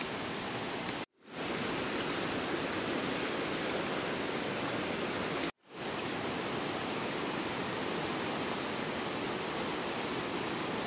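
Steady rush of a swollen, fast-flowing muddy river, broken twice by a sudden silent gap of a fraction of a second.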